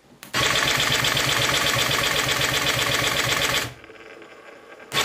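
43cc two-stroke chainsaw engine (ex-McCulloch) on its new electric starter, firing up and running loudly with a rapid, even beat. About three and a half seconds in it drops to a much quieter sound for about a second, then runs loudly again near the end.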